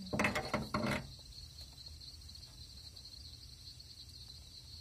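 Crickets chirring steadily at a high pitch in the night, with a short louder burst of sound in the first second.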